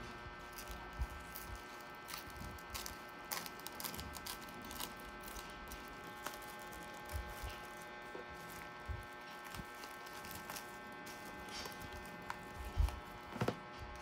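Plastic cling wrap being handled and pressed over a foil tray: faint crinkles, rustles and small clicks, with a few louder knocks near the end, over a steady electrical hum.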